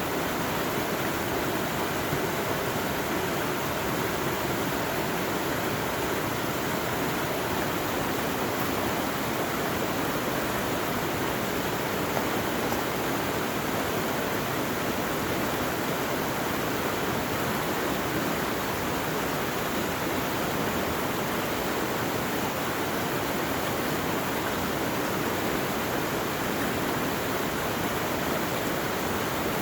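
Running water of a stream rushing steadily, at an even level throughout.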